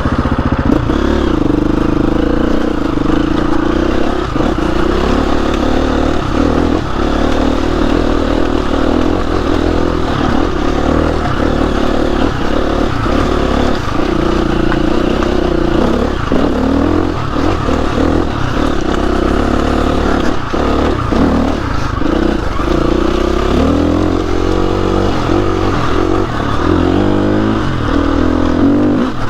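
KTM 350 EXC-F trail bike's engine running under load, revs rising and falling with the throttle, with frequent knocks and clatter as it rides over rough ground.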